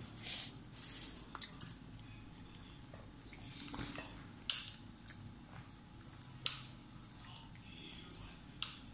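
A toddler eating sushi by hand: scattered small clicks and smacks of mouth and fingers, about six in all, the sharpest about four and a half seconds in, over a low room hum.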